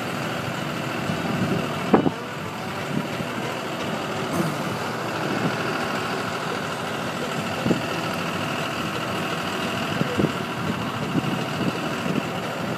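Farm tractor engine running steadily on the move, with scattered knocks and rattles and one sharp knock about two seconds in.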